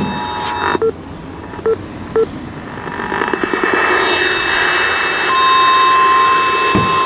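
Emergency Alert System tones off a receiver: the steady two-tone attention signal cuts off under a second in, three short beeps follow, then radio static builds. About five seconds in, a single steady alert tone begins and holds.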